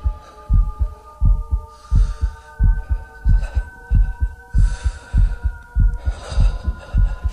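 Heartbeat sound effect: a steady run of low thumps, about two and a half a second, over faint held tones.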